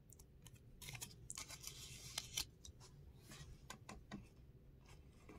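Faint handling of tarot cards: scattered soft clicks and short papery rustles as the cards are moved in the hands.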